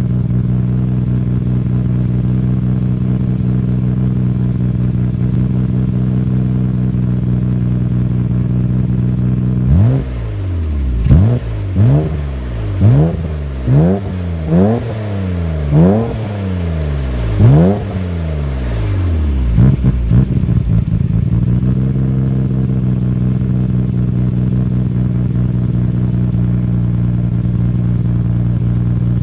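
Nissan Skyline R32 GT-R's twin-turbo RB26DETT straight-six idling steadily, then revved in about seven quick throttle blips, each rising and falling back, with a short crackle before it settles to idle again. It idles with a ticking that the owner puts down to a slight leak at the exhaust manifold.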